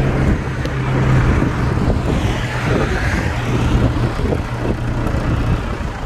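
A car's engine running steadily, with tyre noise as the car reverses slowly across desert sand.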